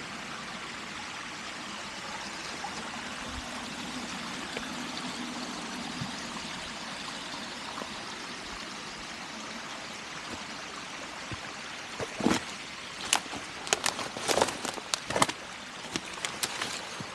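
Steady rush of a mountain stream. About three-quarters of the way through, a run of sharp crunches and clicks starts over it.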